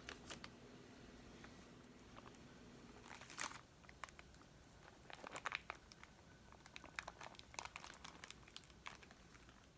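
Faint crinkling and scattered light clicks from hands handling an iPad 2's loosened LCD panel and its surrounding plastic and tape, with a short cluster about a third of the way in and more in the middle.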